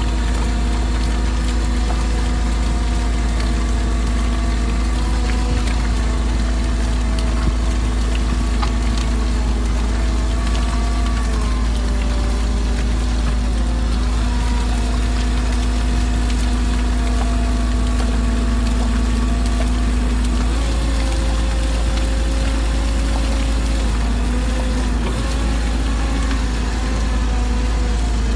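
Excavator engine and hydraulics running steadily under load, driving a SlimDril mixer bucket as it churns wet slurry. A constant machine hum with several steady tones whose pitch shifts now and then.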